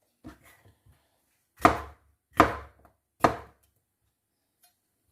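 Kitchen knife chopping vegetables on a cutting board: a few light taps, then three heavy chops less than a second apart.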